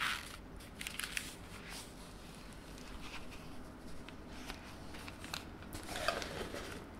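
Quiet handling noise: scattered small clicks and short rustles as a zippered round case is opened and a ball-shaped Panono 360 camera is lifted out of it.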